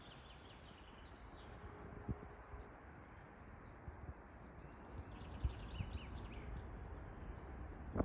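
Faint songbirds singing in short phrases of quick repeated chirps, near the start and again about five seconds in, over a low, even outdoor hiss.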